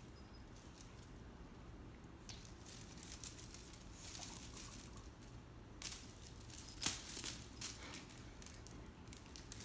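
Faint, scattered rustling and light taps from a cat playing, busiest in the middle of the stretch, with one sharper tap about seven seconds in.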